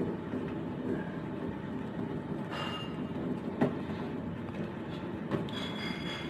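Gas stove burner running with a steady rumble under a stainless steel pot of thick corn soup. A ladle stirring the soup knocks sharply against the pot a little past halfway and scrapes it near the end.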